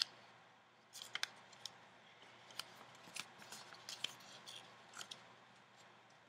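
A small square of paper being folded and creased by hand: faint, scattered crackles and crinkles of the paper, starting about a second in.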